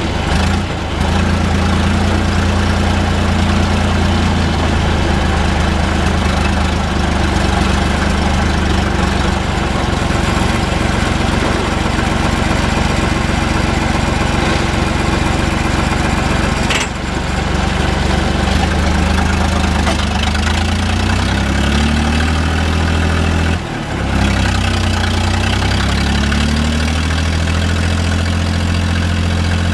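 John Deere 1030's three-cylinder diesel engine running steadily under load through a stainless-steel exhaust pipe, with two brief dips and a shift in engine note in the second half.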